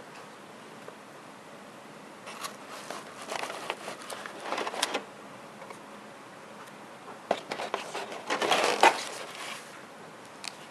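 Thin plastic packaging crinkling and crackling as it is handled, in two bouts of rustling with small clicks, the second one louder.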